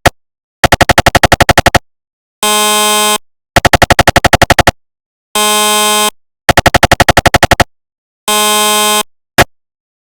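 Recreated GE SIGNA Victor MRI scanner sequence: bursts of rapid knocking, about ten knocks a second, alternate with steady buzzing tones under a second long, three of each, with silent gaps between. A single click sounds near the end.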